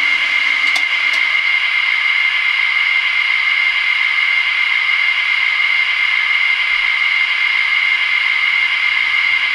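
Steady, loud hiss with a high whine running through it, unchanging throughout, with two faint ticks about a second in.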